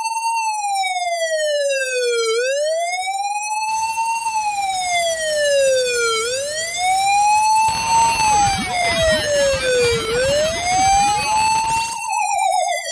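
Ambulance siren sound effect wailing, rising and falling slowly about every four seconds. From about eight seconds in, overlapping copies of the siren glide across each other. Near the end it switches to a fast warbling yelp.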